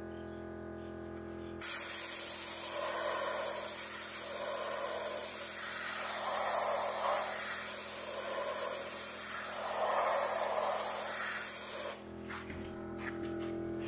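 Compressed-air paint spray gun spraying: a steady hiss that starts about two seconds in and cuts off sharply near the end.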